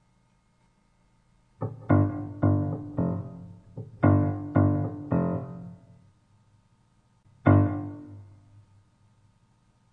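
Solo piano: after a quiet opening, a run of low chords struck one after another about half a second apart, each ringing out and fading, then a pause and a single last chord that dies away near the end.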